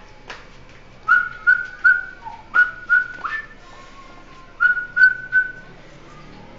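A man whistling short high notes in three groups of three, each note starting with a sharp click.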